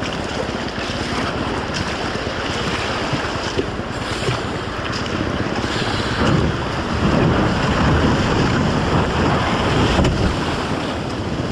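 River whitewater rushing around a canoe running a rapid, mixed with wind buffeting the microphone; the rushing grows louder and heavier about two-thirds of the way through.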